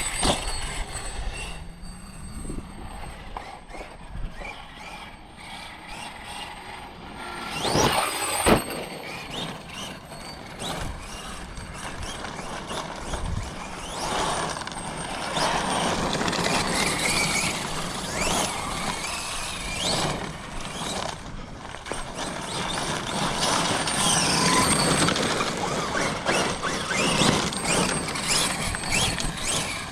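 Losi 5ive TE 3.0, a 1/5-scale electric 4WD truck, being driven: its motor and geartrain whine, rising and falling in pitch as it speeds up and slows. There are a couple of loud knocks about eight seconds in.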